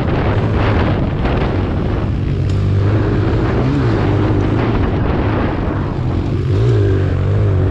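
Kawasaki KLX140 pit bike's single-cylinder four-stroke engine running under load while being ridden, its revs rising and falling with the throttle. A loud rushing noise dominates the first couple of seconds.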